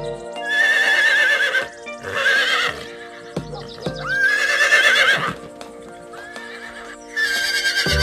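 Recorded horse whinnying: three long neighs with a wavering, shaking pitch, over light background music.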